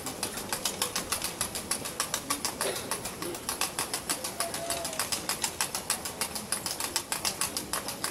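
Rapid, even clacking, about five sharp strokes a second, keeping a steady rhythm throughout.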